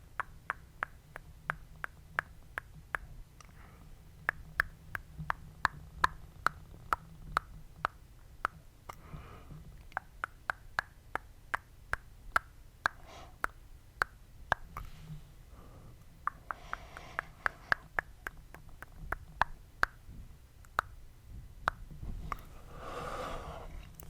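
Close-miked tongue clicking: sharp, wet mouth clicks coming about two to three a second in runs, with short pauses between runs.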